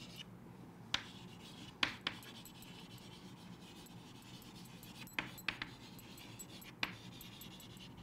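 Chalk writing on a chalkboard: faint scratching strokes with several short, sharp taps of the chalk against the board.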